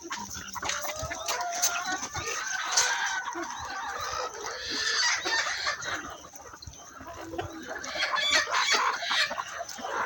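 Flock of local hens clucking while they feed, with a rooster crowing in the first few seconds.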